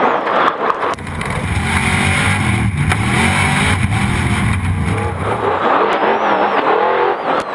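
Trophy truck's engine running hard at race pace, loud and steady, with its revs rising and falling near the end.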